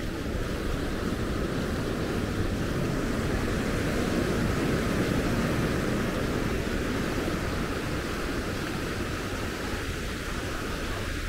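Steady low rushing noise, even throughout, with no speech.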